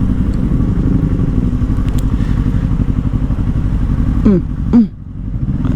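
Yamaha R25 V2's parallel-twin engine running steadily at low revs, with two quick blips of the throttle whose pitch falls back, about four seconds in.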